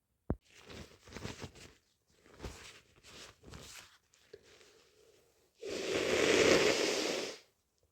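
Several short rustles and crinkles, then, near the end, a long loud rush of air through a stuffy, congested nose, lasting almost two seconds.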